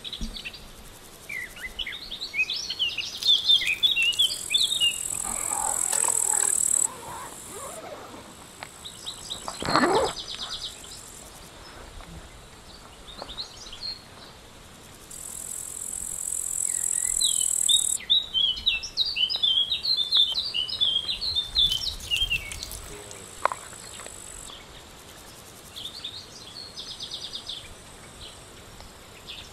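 Birds singing in quick bursts of chirps, and an insect giving a high, steady buzz that starts and stops in spells of a few seconds, with a few brief rustles of gear being handled.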